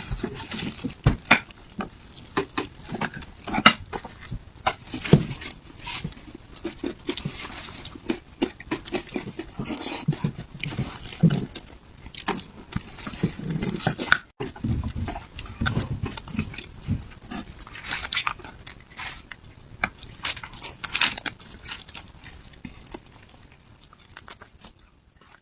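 Close-miked eating of beef bone marrow: wet smacking and sucking mouth sounds with many sharp clicks. There is a short break about halfway, and the sounds fade near the end.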